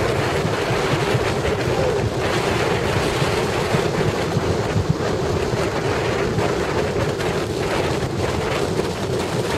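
Wind buffeting the microphone over steady road and engine noise from a moving car.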